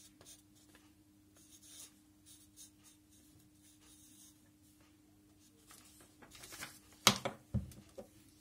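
Marker pen writing on a paper notebook page in faint, short strokes. Near the end, louder handling noises and a sharp click.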